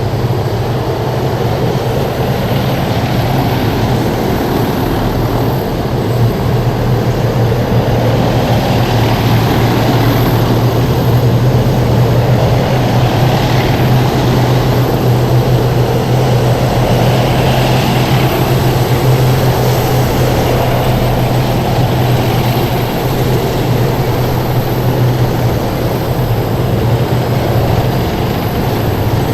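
Heavy military vehicles driving past in a column, their diesel engines running with a loud, steady low drone and road noise that swells slightly after a few seconds.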